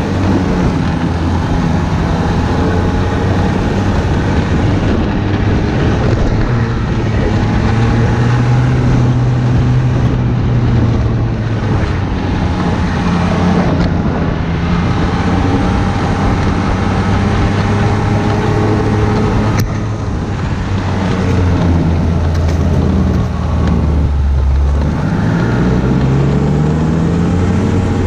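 Ski-Doo Blizzard snowmobile's 900 ACE three-cylinder four-stroke engine running under way. Its pitch rises and falls with the throttle, and near the end the revs drop briefly and then climb.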